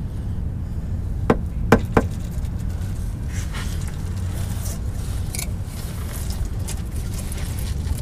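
Warm engine oil draining from the sump into a drain pan, a steady low splashing rush. Three sharp knocks come one to two seconds in.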